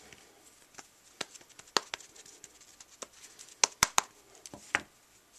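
Sharp taps and clicks of a rubber stamp mounted on a clear acrylic block, handled and knocked against the gold ink pad and the tabletop, about eight in all. The loudest come as a quick pair a little before four seconds in.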